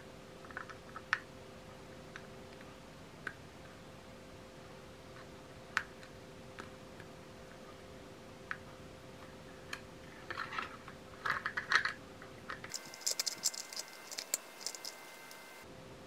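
Small hard-plastic clicks of a spray bottle being handled as its nozzle head is turned: scattered single clicks at first, then quick clusters, and a dense run of clicking in the last few seconds.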